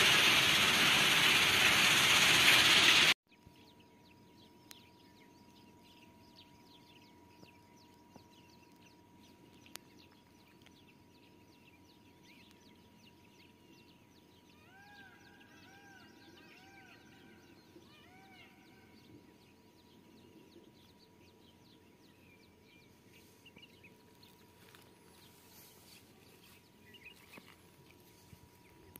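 A loud rushing hiss that cuts off abruptly about three seconds in. Then quiet open-air ambience with birds calling, including a run of short arched calls repeated several times midway, over a faint steady high tone.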